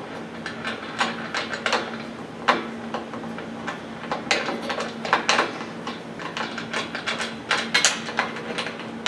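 Wing nut being tightened by hand on a shutter bolt, with irregular metallic clicks and rattles from the corrugated metal hurricane shutter panel as it is worked. A faint steady hum runs underneath.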